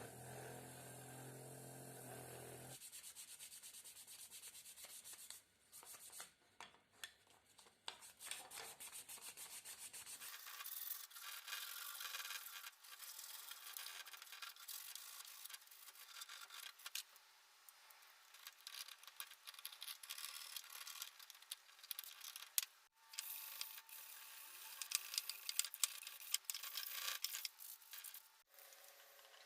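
Hand sanding and filing on the old drill's parts: a fast, scratchy rubbing in short strokes, broken into several takes. A steady hum stops about three seconds in.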